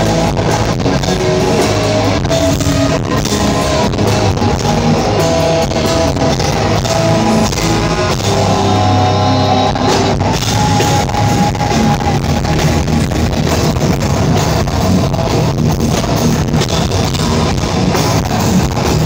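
Live rock band playing loud, with electric guitar and a drum kit.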